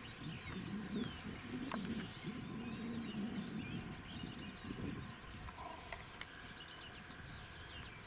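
Many small birds singing and chirping. A low pulsing sound is underneath in the first half, and there are two sharp clicks.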